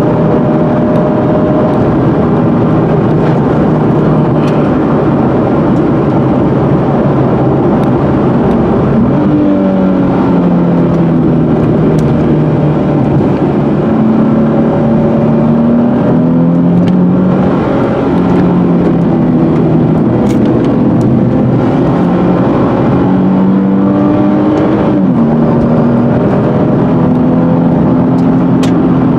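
Nissan 370Z's V6 engine heard from inside the cabin while driving, its pitch drifting up and down with the throttle over a steady bed of road and wind noise. About ten seconds in, and again near the end, the revs climb sharply and then fall away.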